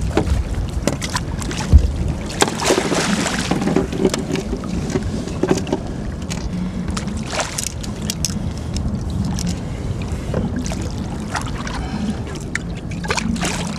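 Sounds aboard a river fishing boat: a steady low hum under a haze of water and wind noise, with scattered knocks. A sharp thump about two seconds in is the loudest sound.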